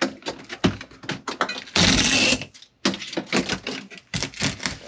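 Work starting on a rotted wood wall panel: a run of sharp knocks and clicks, with one loud, noisy burst lasting about half a second about two seconds in.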